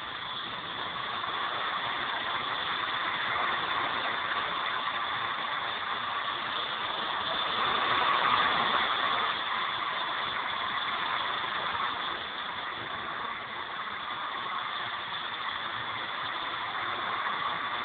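Walkera V200D02 flybarless RC helicopter in flight, its electric motor and rotor blades giving a steady high whine and buzz. The sound swells to its loudest about eight seconds in as the helicopter comes close.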